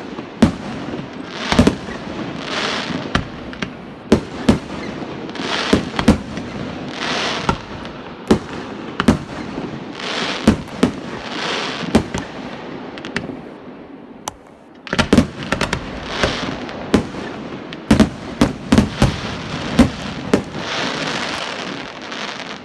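Aerial fireworks display: a steady series of sharp bangs from bursting shells, with roughly second-long stretches of hiss between them, and a dense run of bangs about two-thirds of the way through.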